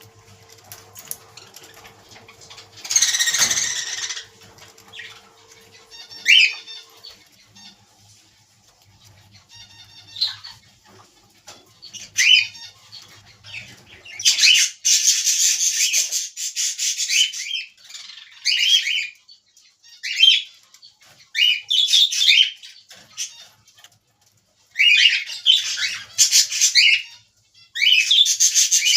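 Budgerigars chirping in short, repeated calls, with several longer, harsher bursts. The longest burst comes about halfway through, and the calls crowd together near the end.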